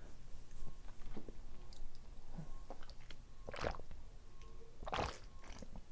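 Close-miked mouth sounds of chewing, then drinking water from a plastic bottle, with two louder swallows a little over a second apart.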